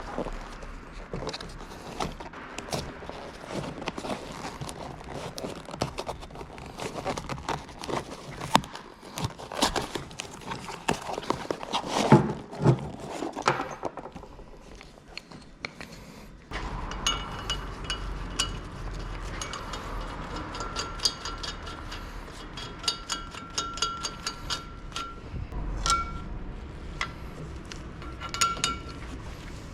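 Metal hand tools and brake parts clinking and knocking, irregular, during front brake pad and disc rotor removal. About halfway through, a steadier background hum with a faint high whine comes in under the clinks.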